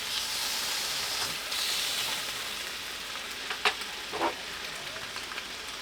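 Chicken thigh sizzling in a hot pan, a steady hiss that eases a little after the first couple of seconds. Two light knocks, like a utensil tapping cookware, come about halfway through.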